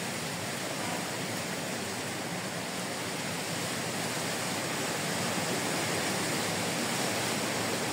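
Hurricane-force wind blowing through coconut palms: a steady, even rushing noise with no let-up.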